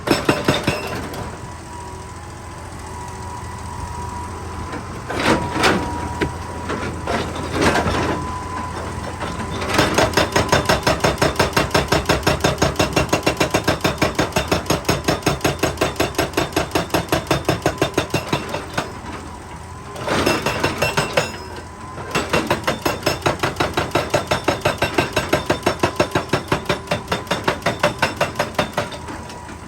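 Excavator-mounted hydraulic rock breaker hammering rock: a few separate knocks, then two long runs of rapid, evenly spaced blows, about five a second, with a short break between them.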